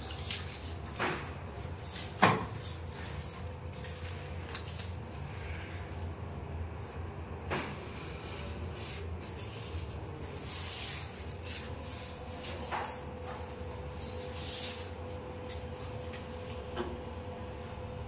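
Paper backing of a self-adhesive velcro strip rustling as it is peeled and the strip is pressed along a window frame by hand, with a few light knocks against the frame, the sharpest about two seconds in. A steady low hum runs underneath.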